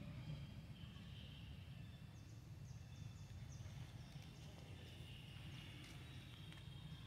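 Faint outdoor ambience: a low steady rumble under a thin high hum, with a quick run of five faint, short, falling high chirps a couple of seconds in and a few faint ticks later.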